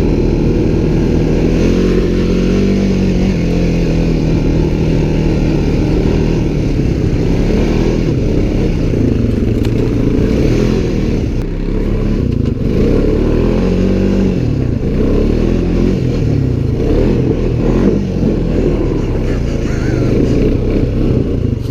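Off-road side-by-side or ATV engine running under way, its pitch rising and falling with the throttle.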